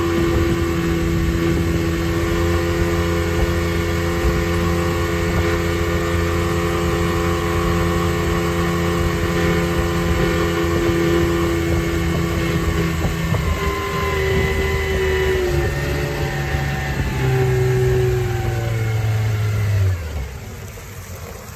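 1983 Tohatsu 15 hp two-stroke outboard running steadily at speed, with wake water rushing behind the boat. In the last third the engine speed shifts up and down a few times, then near the end it drops suddenly to a much lower, quieter speed.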